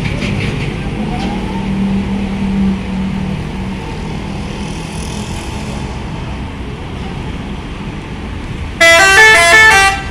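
Heavy vehicle's engine running steadily. Near the end, a loud multi-tone musical air horn sounds a quick tune of several stepping notes for about a second.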